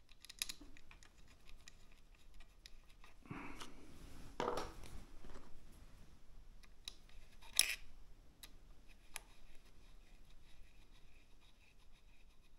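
Hand work on small parts: scattered sharp clicks and scraping, with two longer scraping rubs about three to five seconds in and one loud, sharp click just before eight seconds.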